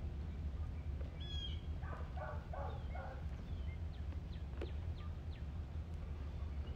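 Birds calling: a short chirp about a second in, then four quick calls in a row around two to three seconds in, with scattered faint chirps. A steady low hum runs underneath.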